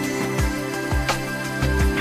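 Background music with a steady beat, about two beats a second, over held tones.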